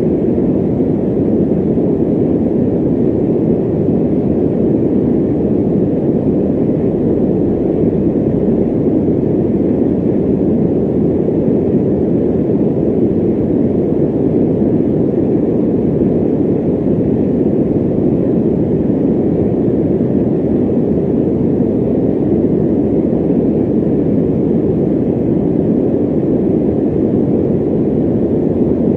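Electric fan running: a steady, deep rushing noise with no change in level.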